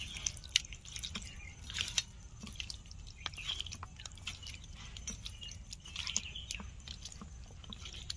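Hand mixing yogurt into raw country chicken pieces in a steel plate: irregular wet squelches and small smacks.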